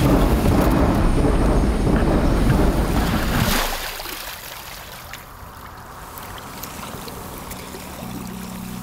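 A loud low rumble fills the first three and a half seconds and cuts off abruptly. Then a kayak paddle works the water quietly on a river at night. Music comes in near the end.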